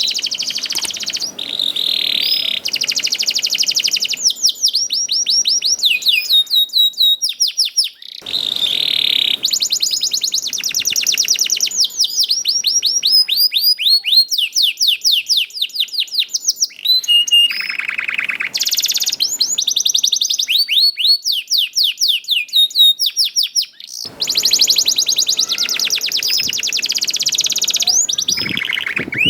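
Canary singing a long, continuous song of fast trills and rolls: rapid runs of repeated sweeping high notes, changing phrase every second or two, with short breaks about eight seconds in and again near the end.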